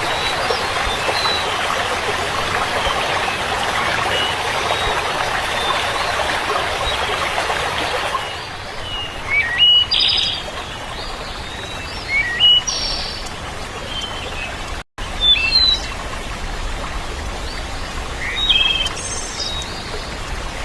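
Running water with birds chirping over it. About eight seconds in the water gives way to clearer bird chirps, short rising and falling calls, with a brief dropout partway through.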